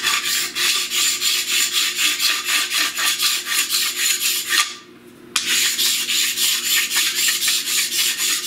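Razor blade scraping the face of a drilled MDF board in quick, even back-and-forth strokes, about four or five a second, with a short pause about five seconds in. The scraping cleans raised wood fibres and burnt residue off the surface around the drilled holes.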